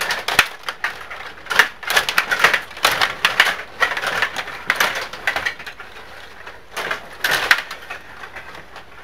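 Stiga rod table hockey game in play: quick clusters of clacking and rattling as the players spin and slide the rods and the plastic figures and puck knock against each other and the boards, with quieter stretches in between.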